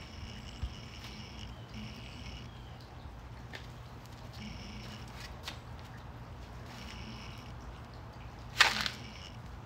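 Backyard ambience: a high chirping animal call repeats in short bouts over a steady low hum. About 8.6 s in comes one sudden loud, rushing burst lasting under half a second.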